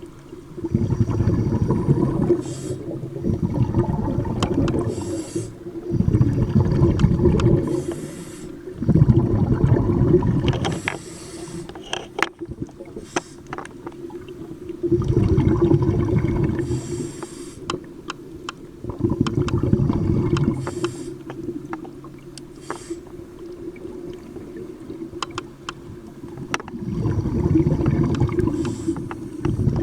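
Scuba diver breathing through a regulator underwater: a short hissing inhale through the demand valve, then a longer rumbling burst of exhaled bubbles, repeating about every four to five seconds.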